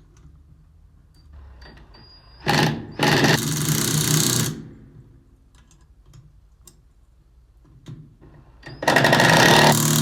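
Impact gun hammering, tightening bolts in two bursts of about two seconds each, a few seconds apart.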